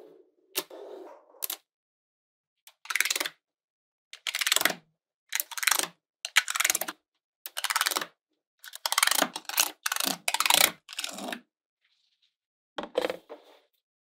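Small magnetic balls clicking and rattling as they snap together and are pressed onto a magnet-ball structure, in a dozen or so short bursts separated by silence.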